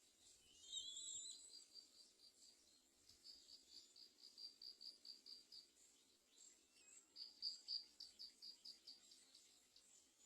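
Faint high-pitched calls: one wavering call about a second in, then long runs of rapid, evenly spaced chirps, roughly five a second.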